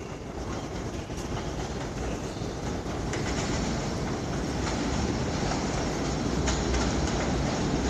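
New York City Subway 3 train approaching on an elevated track, its rumble and wheel-on-rail noise growing steadily louder, with a few faint clicks. The train is out of service and running through the station without stopping.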